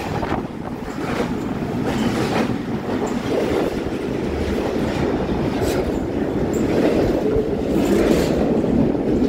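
Double-stack intermodal freight cars rolling past close by: a steady rumble of steel wheels on the rails, with scattered sharp clacks as the wheels cross rail joints.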